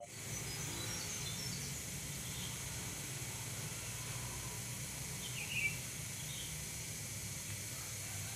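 Outdoor ambience: a steady low background noise with a few short, faint bird chirps, the loudest a little past halfway.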